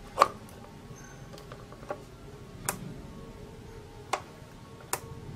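A USB flash drive clicking into the port of a subwoofer speaker unit, then the unit's plastic volume-up button pressed, a sharp click on each of four presses.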